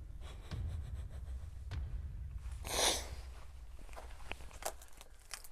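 Footsteps and movement on foot: a low rumble, one scuffing rush about three seconds in, and a few light clicks near the end.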